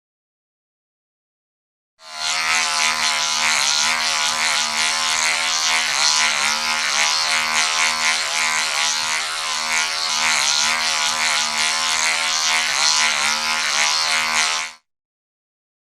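A motor vehicle's engine running steadily at an even pitch with a hissy, rough edge. It starts about two seconds in and cuts off shortly before the end.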